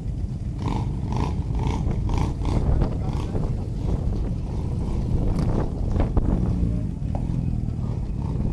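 A group of heavy cruiser motorcycles running, a steady low engine rumble, with one bike moving off slowly near the end.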